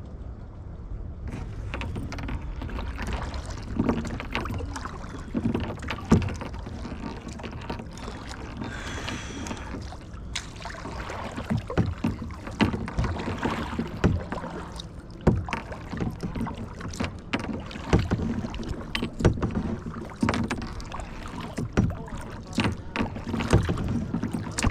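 Kayak paddling: the paddle dips and splashes in the water, with frequent short knocks at an irregular pace over a low steady rumble.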